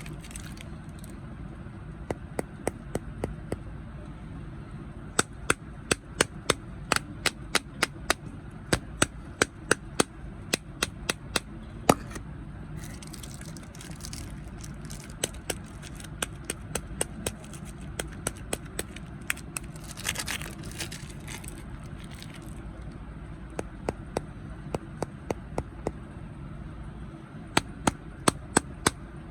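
Crunchy snacks crunching: runs of sharp, crisp cracks, about two to three a second, broken by short pauses, over a steady low hum.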